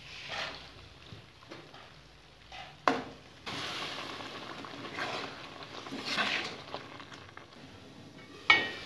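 A metal spoon stirs and scrapes egg-and-potato curry in a metal pan, knocking once against the pan about three seconds in, over a steady sizzle from the pan from about three and a half seconds on. Near the end a metal lid clanks down onto the pan and rings briefly.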